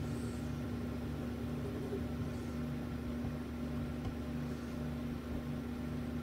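Steady low machine hum with a regular slow pulsing, like a running appliance or fan.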